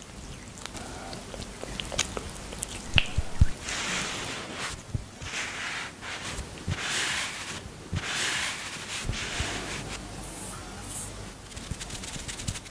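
Close-miked ASMR skincare sounds: small sticky clicks of fingers working a cream face mask on the skin, then several swishing strokes as a sponge wipes the mask off the face.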